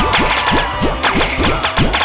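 Electronic background music built on a quick, steady run of short notes that each slide downward in pitch, several a second.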